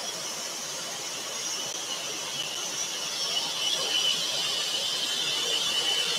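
Scroll saw running with its blade cutting through a thin wooden panel: a steady, fairly quiet whir and hiss with a high edge.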